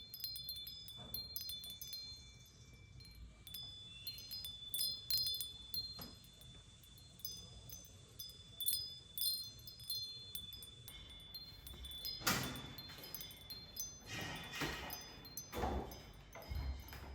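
Light, high-pitched chime tinkles ringing at scattered moments, with rustling and a few knocks from about twelve seconds in.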